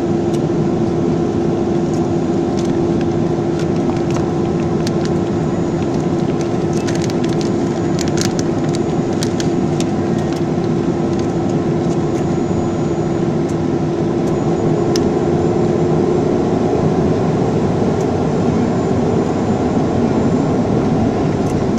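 Boeing 737-300 cabin noise from its CFM56-3 jet engines running during taxi: a steady drone with a steady hum, growing slightly louder about two-thirds of the way through. A few light clicks come midway.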